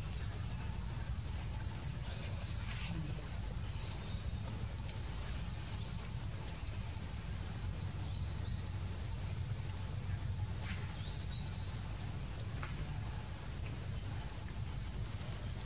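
Insects droning steadily at one high pitch, over a low rumble, with a few short faint chirps now and then.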